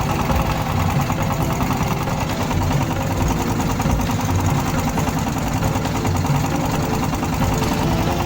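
A small fishing boat's engine running steadily.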